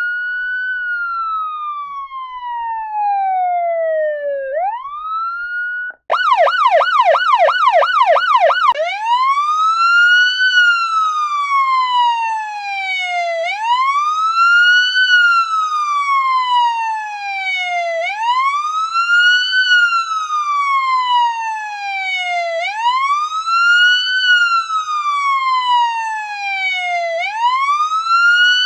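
Electronic police siren wailing, each cycle rising quickly and falling slowly about every four and a half seconds. About six seconds in it cuts out for an instant and switches to a fast warble, about four sweeps a second, for nearly three seconds before returning to the slow wail.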